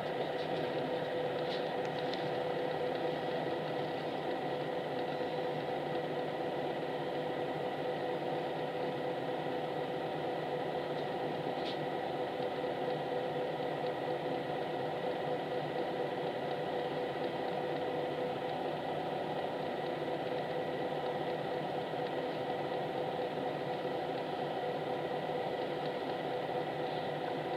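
Highway coach's diesel engine idling while stopped, heard inside the passenger cabin as a steady hum with a faint whine.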